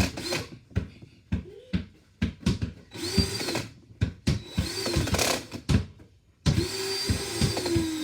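Small electric drill run in short bursts, its motor whirring up to speed and winding down again several times, with clicks and taps between the runs.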